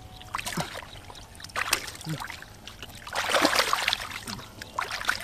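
Hands sloshing and splashing in shallow muddy water while groping for catfish, in short uneven splashes, with a longer, louder burst of splashing about three seconds in.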